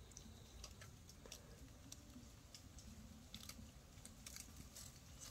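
Near silence: faint, scattered soft clicks over a low background rumble.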